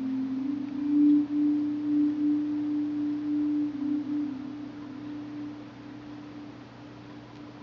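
A steady low pure tone, two close pitches wavering against each other, that swells about a second in and then slowly fades: a meditation-style drone.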